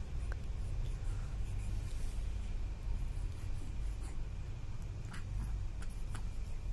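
Low rumbling handling noise with faint scratchy rustling and a few light clicks.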